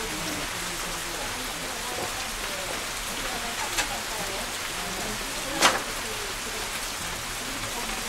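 Steady rain falling, with two sharp taps, about four and about five and a half seconds in, the second the louder.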